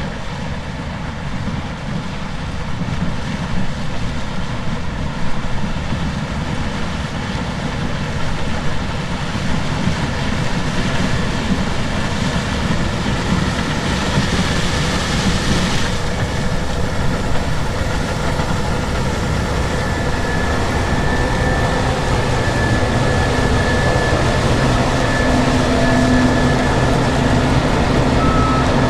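Case IH Axial-Flow combine running steadily as it harvests corn, a heavy low hum with a steady whine that comes in about two-thirds of the way through.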